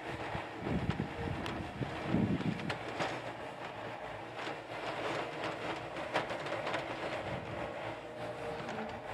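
Yanmar YB451 mini excavator's diesel engine running steadily while the boom and bucket dig and drag damp dirt, with scattered clanks and knocks from the bucket and linkage.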